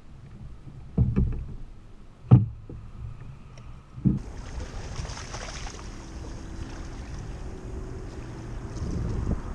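Three sharp knocks on a plastic sit-on-top fishing kayak as gear is handled aboard, the second the loudest, followed by a steady rush of wind and water against the hull.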